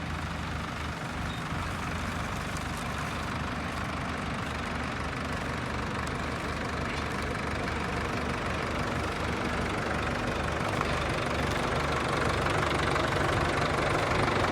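Tractor engine running steadily at a low, even speed, growing gradually louder toward the end.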